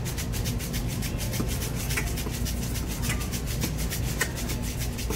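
Rattling, rubbing handling noise, a fast even run of clicks about eight a second, over a steady low hum.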